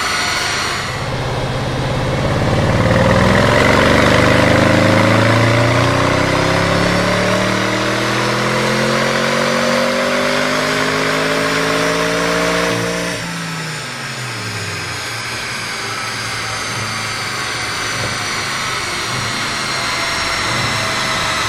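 Audi RS6 C8's twin-turbo V8 through a Capristo stainless cat-back exhaust making a full-throttle pull on a chassis dyno: the engine note climbs steadily in pitch for about twelve seconds. It then drops away quickly as the throttle closes and settles to a quieter steady running.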